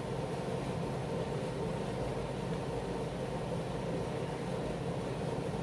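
Air conditioner running in fan mode: a steady, even hum and rush of air with no breaks.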